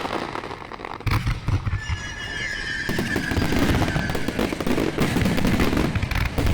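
Aerial fireworks bursting and crackling densely in a festival finale barrage, with a sudden loud burst about a second in.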